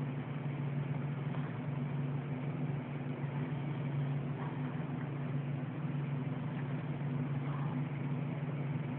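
Sleeping cat purring: a steady, continuous low drone that keeps going without a break.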